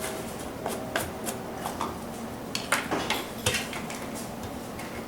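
Irregular light metallic clinks and taps from a can of lead-bearing tinning flux and an acid brush being handled and stirred.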